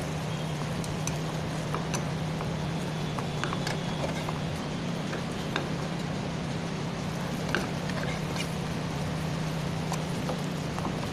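Metal spatula clicking and scraping against a black frying pan as a paratha is pressed and pushed around while it fries, scattered sharp clicks over a steady low hum.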